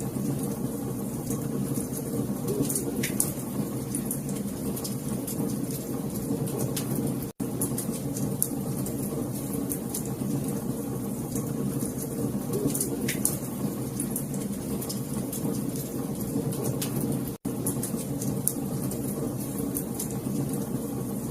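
Wood fire burning in a fireplace: a steady low rush of flames with scattered sharp crackles and pops. The sound cuts out for an instant twice, about 7 and 17 seconds in.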